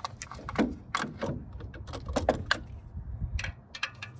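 Irregular metallic clicks and clinks of a 14 mm socket and ratchet being handled and fitted onto the adjusting bolt of a power steering belt tensioner.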